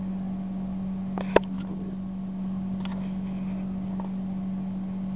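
A steady low hum, with one sharp click about a second and a half in and a few faint taps from food handling.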